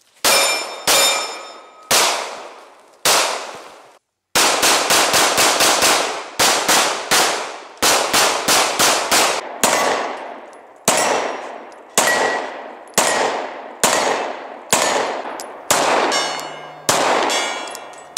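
Glock 19 9mm pistol firing, with steel targets ringing after hits. Some shots come in quick strings of about five a second, others singly about a second apart. There is a brief break about four seconds in.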